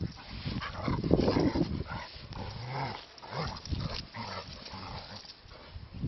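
Gordon setter and a small shaggy dog tugging a rope toy between them, with play-growls that are loudest about a second in.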